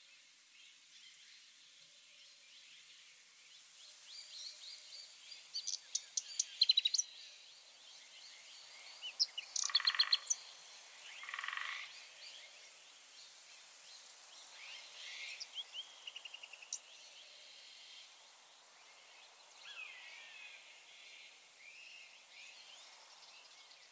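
Outdoor nature ambience of animal calls: chirps and rapid trills over a faint steady hiss, with two louder calls close together near the middle.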